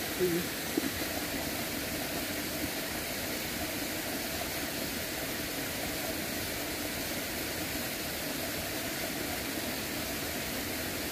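Steady rushing noise of flowing stream water, unchanging throughout.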